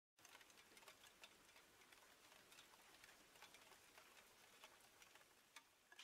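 Faint crackling of a small wood fire: irregular sharp ticks and pops, several a second.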